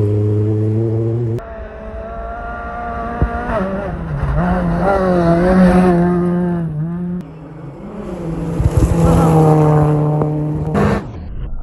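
Rally car engines at full throttle on a gravel stage, in a run of short clips that cut off abruptly. A held engine note gives way to revs that rise and fall as a car slides past, then a note that climbs again before cutting out near the end.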